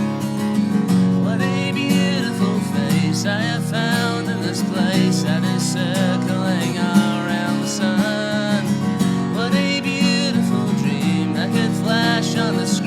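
Acoustic guitar strummed in a steady rhythm, with a voice singing over it from about a second in.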